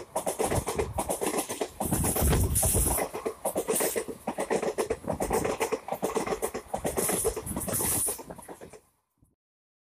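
A train of ICF passenger coaches rushing past at speed on the next track, heard from the open door of a moving train: rapid wheel clatter over rail joints with wind rush and rumble. It cuts off suddenly near the end.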